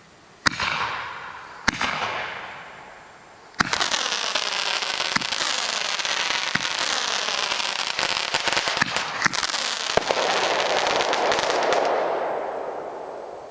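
Fireworks: two sharp bangs about a second apart, each trailing off in a fading hiss. Then, from about three and a half seconds in, fan candles fire a stream of comets in a dense, continuous crackle dotted with sharp pops, which dies away after about twelve seconds.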